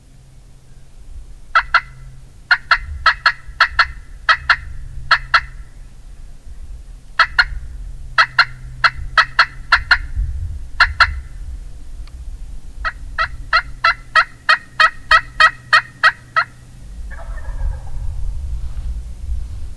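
Wild turkey yelps: three runs of sharp, evenly spaced notes, about three or four a second, the last run the longest. Near the end comes a brief rougher, lower sound.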